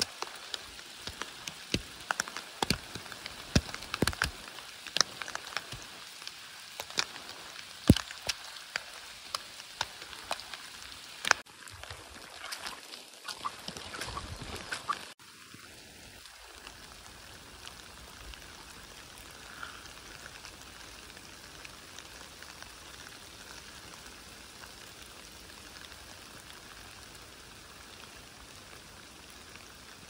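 Rain falling in a forest: a steady hiss with many sharp, close drops tapping. About halfway through, the sound changes abruptly to a quieter, even patter of rain with few close drops.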